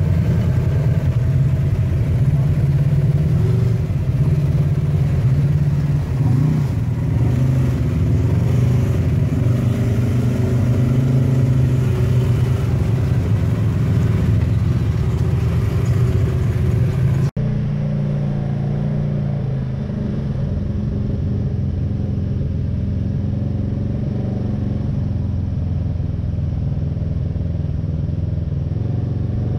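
Polaris RZR side-by-side engines running steadily as the machines wade a flooded mud trail. After an abrupt cut about two-thirds of the way through, a RZR's engine is heard from inside the cab, cruising at about 2,500 rpm in third gear.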